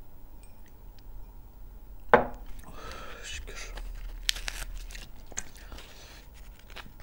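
A short, loud voiced sound about two seconds in. Then a crusty white bread loaf is torn apart by hand, its crust crackling in quick sharp snaps, with a few light clicks after it.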